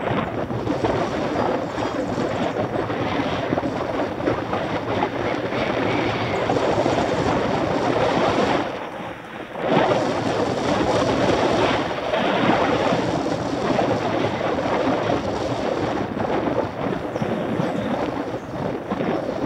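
Wind rushing over the microphone of a camera on a moving mountain bike, a steady, fluctuating noise that dips briefly about nine seconds in.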